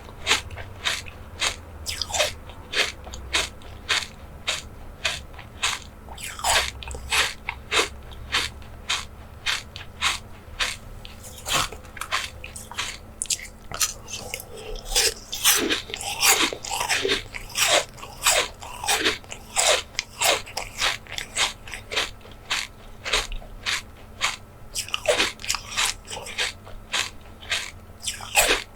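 Close-miked ASMR eating: a mouth biting and chewing food with a steady run of sharp crunches, about two or three a second.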